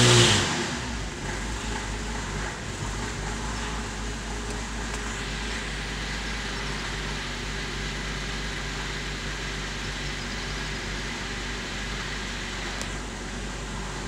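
A 2006 Cadillac CTS's 2.8-litre V6 comes down off a brief rev in the first second and settles to a steady idle near 1000 rpm. The engine has logged intermittent misfires on cylinders 2, 4 and 6.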